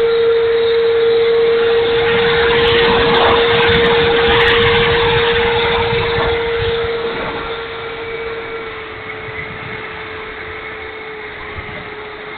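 Electric ducted-fan motor of a Dynam Meteor RC sport jet in flight, a steady whine that eases a little lower in pitch and quieter about two-thirds of the way through, with wind buffeting the microphone.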